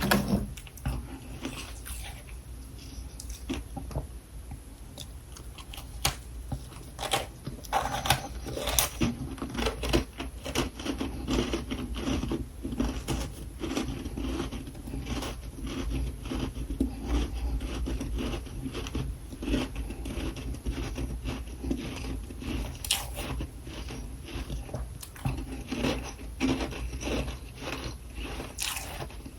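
Chewing: a long run of irregular crunches and clicks.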